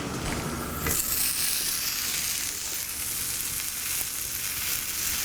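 Buttered grilled cheese sandwich frying in a hot pan, the butter sizzling steadily; the sizzle gets louder about a second in.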